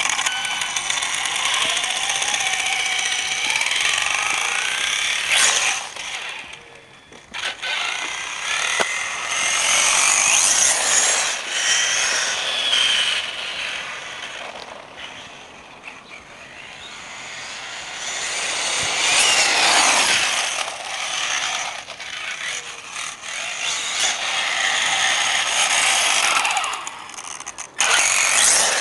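1/5-scale 4WD electric RC car with a brushless motor, whining high as it drives, the pitch rising and falling over and over as it speeds up and slows down, with the loudness swelling and fading as it comes close and moves off.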